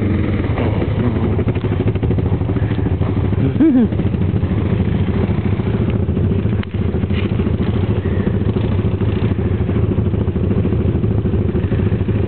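ATV (quad) engine running steadily, with a short rise in pitch a little under four seconds in.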